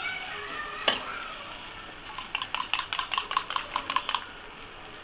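An egg being beaten with a utensil in a small bowl: a quick run of about a dozen light clicks, six or seven a second, for about two seconds, after a single sharp tap about a second in. A steady frying hiss runs underneath.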